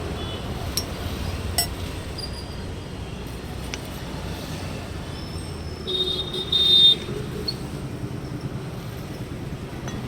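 Steady street traffic rumble, with two short high-pitched tones about six seconds in and a few faint clicks early on.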